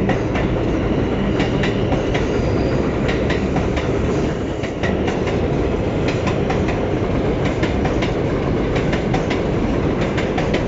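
R142 subway train departing the station, its cars rolling past with a steady rumble and steel wheels clicking over the rail joints.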